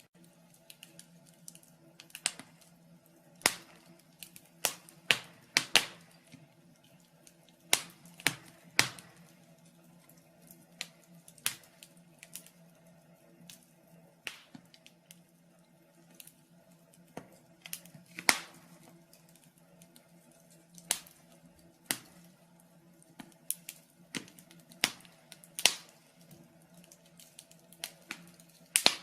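Wood fire crackling in a fireplace: irregular sharp pops and snaps, a few of them much louder than the rest.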